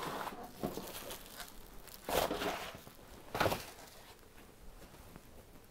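Packaging and pizza being handled: two short rustling scrapes about a second apart, the first about two seconds in, with faint clatter before them.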